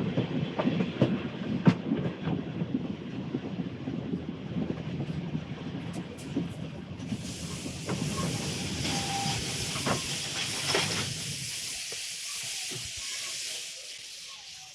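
Steam train running, with wheels clattering and knocking over the rails. About halfway through, a strong steam hiss starts; then the rumble dies away, leaving the hiss, which fades out at the end.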